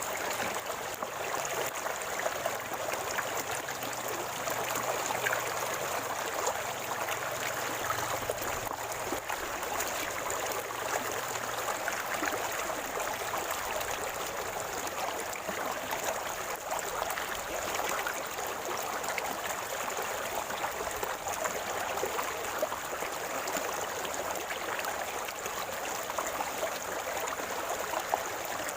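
Shallow river or stream water flowing and gurgling steadily over rocks, a continuous rush flecked with small splashes.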